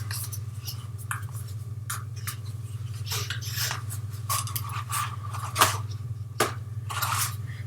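A box of dip-powder jars being opened by hand: scattered scrapes, rustles and clicks of the packaging, over a steady low hum.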